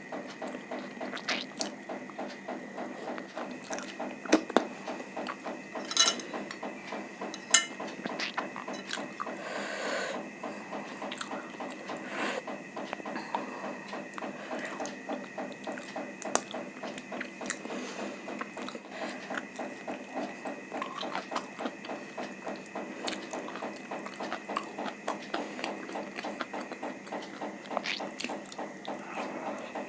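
Close-miked eating sounds: steady chewing with wet mouth clicks and smacks, and a few sharper clicks in the first eight seconds.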